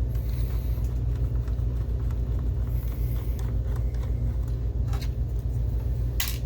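A steady low hum, with a sharp click near the end from small parts being handled.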